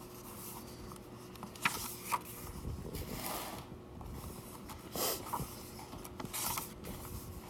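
Paper pages of a picture book being handled and turned: soft rustles with a few light clicks.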